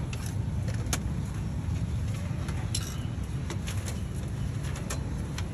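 Steady low rumble of street traffic, with a few sharp clicks and clinks of metal kitchen utensils scattered through it.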